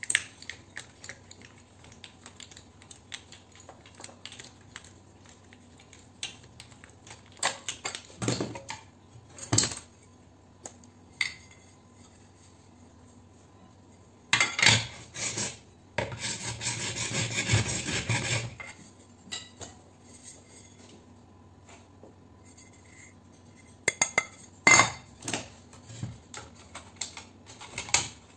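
A cylindrical commercial spotlight fixture being taken apart with a screwdriver: scattered clicks, clinks and knocks of the tool and the fixture's metal and plastic parts. Just past halfway comes a louder cluster of knocks, then a continuous scraping stretch of about two and a half seconds as parts are worked out of the housing.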